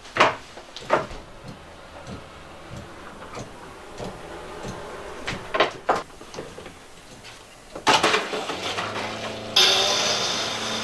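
A few light clicks and knocks of hands on the plumbing, then about eight seconds in a PEX line is opened and air and water hiss out, louder a second and a half later. Under the hiss, the 12-volt SHURFLO diaphragm water pump kicks on with a steady hum as the system pressure drops.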